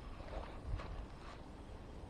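Handling noise from a spinning rod and reel: a few soft clicks and rustles, with one dull thump about three-quarters of a second in.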